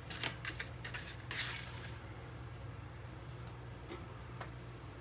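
Kitchen tongs clacking and scraping on a metal sheet pan as roasted butternut squash pieces are picked up and dropped into a food processor bowl. There is a cluster of clicks and a short clatter in the first two seconds, then two faint clicks near the end, over a steady low hum.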